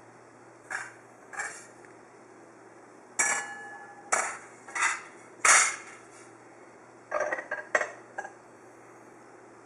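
Stainless-steel parts of a Breville 800CPXL citrus press clanking as they are handled and fitted together: a string of irregular metal knocks, one about three seconds in ringing on briefly, with a quick cluster of knocks near the end.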